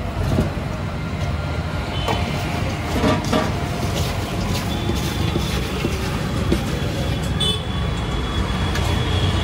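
Steady low rumble of street traffic, with a few light knocks of utensils and a thin high steady tone that comes in about halfway through.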